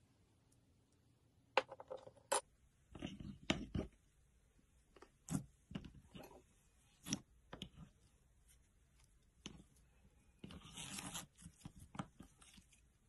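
Slime being handled: an irregular run of short, sharp pops and clicks, with one longer noisy stretch of about a second around ten seconds in.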